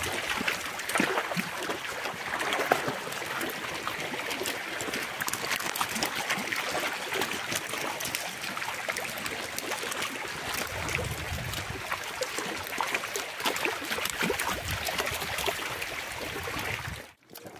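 Shallow water trickling and flowing across the mud of a drained shrimp pond, with many small clicks and pops. There are low rumbles about eleven and fifteen seconds in, and the sound cuts off suddenly near the end.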